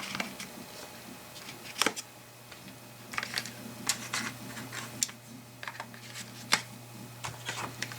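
Irregular clicks and taps of small hard plastic and metal pieces being handled, with a few louder clicks about two seconds in and again near six and a half seconds.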